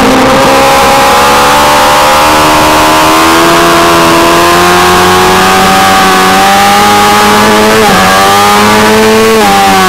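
A 600 cc supersport race motorcycle's engine at high revs, heard from on board, pulling hard out of a corner with its pitch climbing steadily. There is a brief dip at a gear change about eight seconds in, and the pitch starts to fall near the end as the throttle closes.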